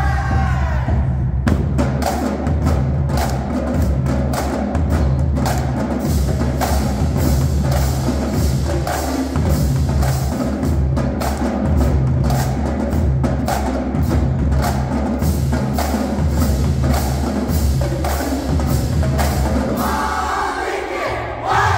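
High school marching drumline playing a cadence: rapid snare drum strokes over a line of pitched bass drums, with tenor drums. A dense run of fast strokes starts about a second and a half in and runs on steadily.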